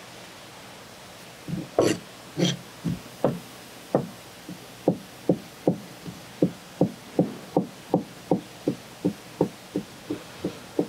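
Knife chopping on a wooden cutting board: a few sharper knocks, then a steady run of even knocks about three a second.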